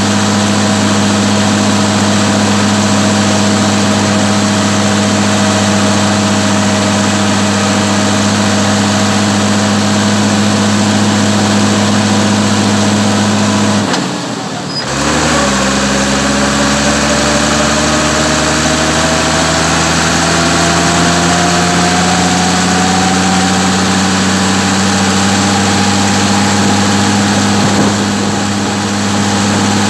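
Massey Ferguson 399 tractor's six-cylinder Perkins diesel running steadily under way, a deep, even engine note. About halfway through the sound dips briefly, then a whine comes in lower and slowly rises in pitch over the next ten seconds or so, with a slighter dip near the end.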